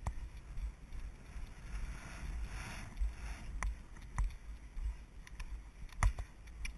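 A horse's hooves drumming on turf at speed, heard close up from the rider's head-mounted camera, with wind rushing on the microphone and a few sharp clicks.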